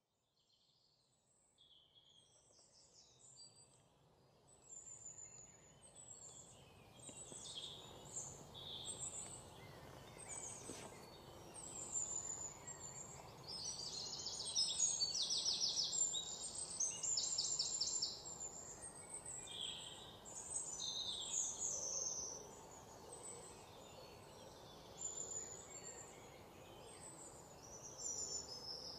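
Wild birds chirping and calling, with several fast trills, over a low steady background hiss; the sound fades in from silence over the first few seconds.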